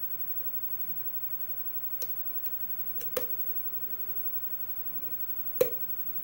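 Picking a Lockwood pin-tumbler lock: several small metallic clicks of the pick and pins around two to three seconds in, then one sharp, louder click near the end as a pin sets under tension.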